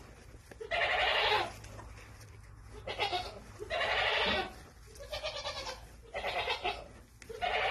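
Newborn piglets squealing: a series of short high-pitched cries, each lasting about half a second to a second, with brief pauses between them.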